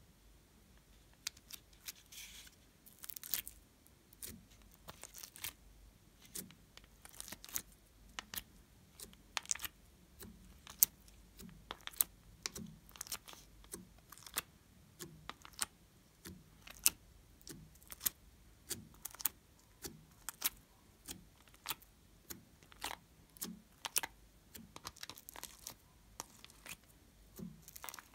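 Fingertips pushing slime cubes out of a plastic cube tray: irregular sharp clicks of nails and flexing plastic, one or two a second, with soft sticky pops as the cubes come free.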